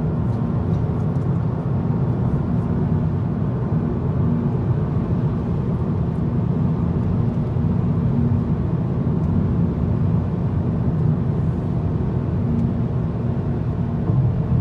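Steady hum of a car cruising at highway speed, heard from inside the cabin: tyre, engine and road noise.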